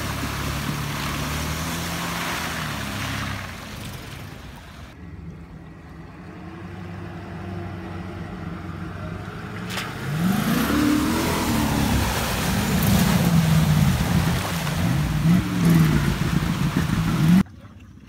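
A 4x4 truck's engine runs steadily, then from about ten seconds in revs up and down several times as the truck drives through water, cutting off suddenly near the end.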